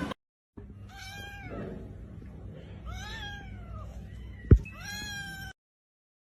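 A domestic cat meowing three times, each meow rising then falling in pitch. There is a single sharp knock just before the third meow.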